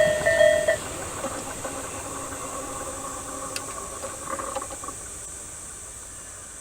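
A railway level crossing's electronic warning bell rings in quick repeated two-tone beeps and stops about a second in. A fading hiss and rumble from the departing train follows, with a single sharp click a little past halfway.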